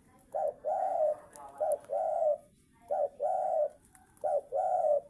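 Spotted dove cooing: four phrases, each a short coo followed by a longer one, repeated about every second and a half.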